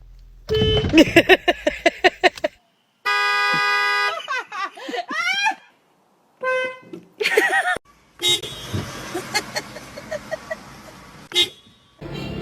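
Car horn honking: one steady blast lasting about a second, about three seconds in. Other short sounds come before and after it, a fast pulsing burst and then sliding pitches.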